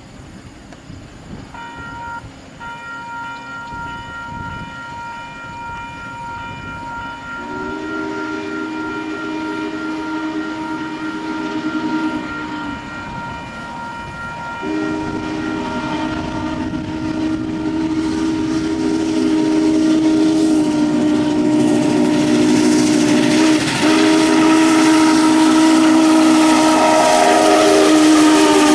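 Union Pacific 4-6-6-4 Challenger steam locomotive 3985 approaching and passing, its chime whistle sounding in long drawn blasts with a short break about halfway. The noise of the engine and train grows steadily louder as it comes by.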